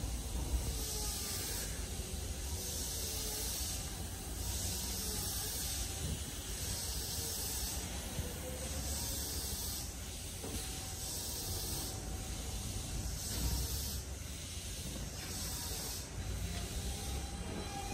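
Nankai 1000-series electric train standing at a station platform, its equipment giving a steady hiss over a low rumble, the hiss swelling and easing every second or two.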